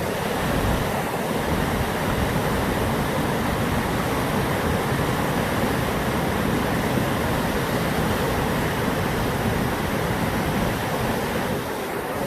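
Steady rush of the Brúará river's waterfalls and rapids: a continuous, even noise of falling water.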